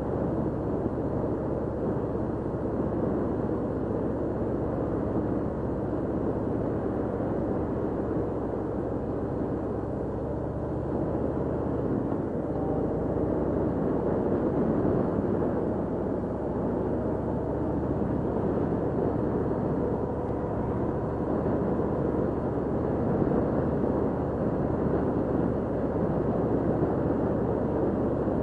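Cruiser motorcycle engine running at road speed under a steady rush of wind and road noise; the engine note shifts about twelve seconds in.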